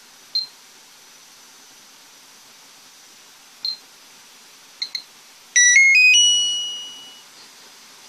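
An air conditioner control board's buzzer plays its power-on jingle about five and a half seconds in: four quick rising notes, then a long note that fades away. The board is restarting because the load on its power supply has gone past about 500 mA, more than the supply can hold. Several short high beeps come before it.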